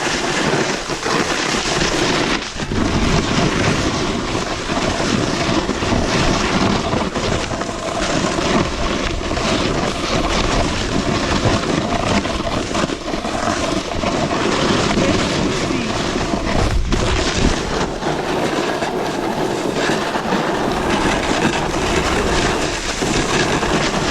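Snowboard riding down a run: the board's base and edges scraping over hard, icy snow in a continuous rush, with wind buffeting the microphone.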